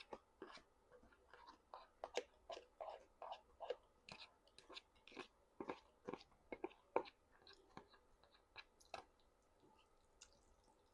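Faint chewing with quick wet mouth clicks and crunches, several a second, thinning out over the last few seconds.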